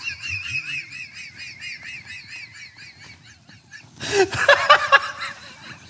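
High-pitched wheezing laughter: a rapid, squeaky, wavering squeal pulsing several times a second for nearly four seconds, then a few louder honking bursts of laughter about four seconds in.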